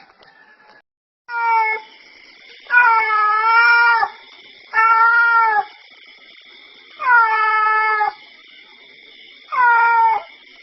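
A cat meowing loudly, five drawn-out meows about two seconds apart, over a steady high-pitched hum.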